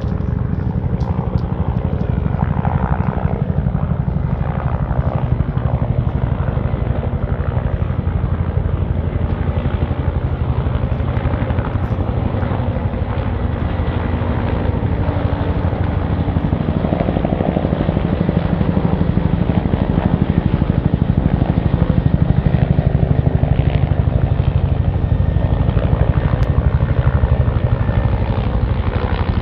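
Agusta-Bell AB 212 helicopters flying overhead, their two-bladed main rotors beating in a fast, steady rhythm that grows a little louder about two-thirds of the way in.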